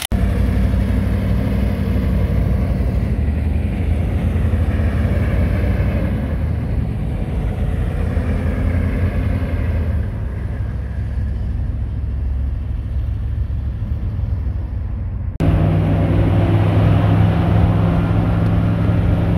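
Military Humvee's V8 diesel engine running, its pitch rising and falling a little. About fifteen seconds in it cuts suddenly to a louder, steadier engine and road noise heard from inside a Humvee's cab at highway speed.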